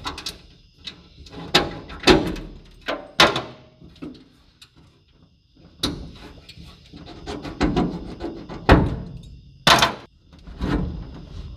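Irregular metal clunks and knocks from hands working a hinged steel seat frame and its quick-release pins: about a dozen sharp knocks at uneven intervals, with quieter rattling between them.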